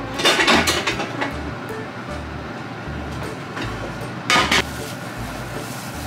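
Background music with a steady bass line, broken by two brief bursts of kitchen handling noise: one lasting about a second near the start, a shorter one about four seconds in.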